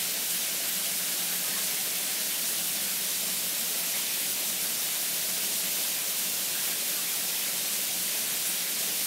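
Shower head spraying water onto the tiles, a steady even hiss of falling water.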